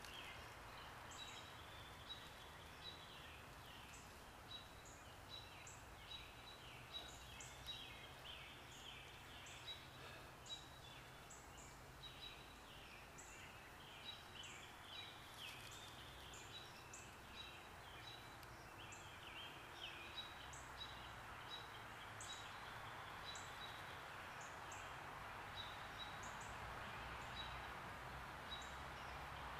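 Faint outdoor ambience: short, high chirps repeat every half second or so, with a soft hiss rising near the end.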